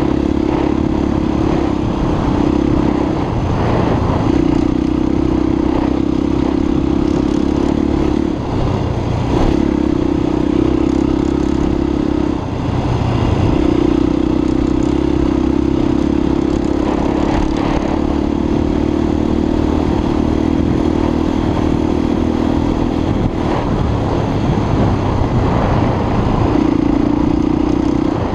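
Honda XLR250 enduro motorcycle's single-cylinder four-stroke engine running under way. Its steady note drops out briefly several times before picking up again.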